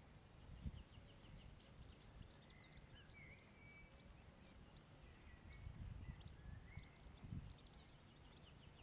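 Near-silent outdoor ambience: small birds chirping faintly now and then, with a few soft low thuds of a pony's hooves.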